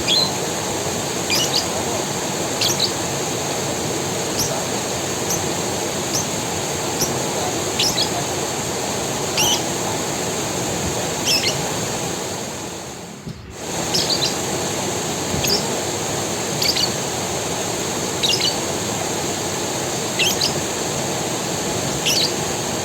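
Forest creek water flowing with a steady rush, while a bird gives short, high chirps about every second and a half. The whole sound dips briefly just past the middle, then returns.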